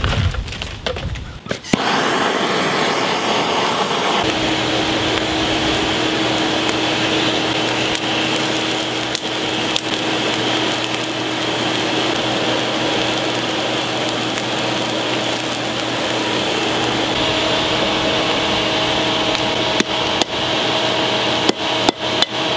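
Charcoal forge blown by a shop vacuum used as an air blower: a steady rushing hiss with a low hum and occasional crackles. Near the end come several hammer blows on a chisel held against the red-hot axe head on the anvil, knocking slag out of the eye.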